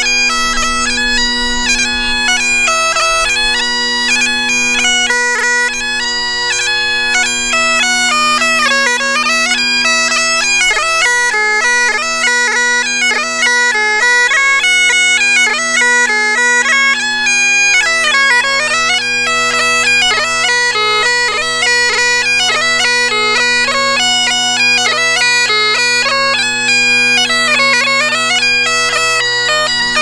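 Great Highland bagpipe playing a tune: the chanter's melody moves quickly, with rapid grace-note flicks, over the steady unbroken hum of the drones.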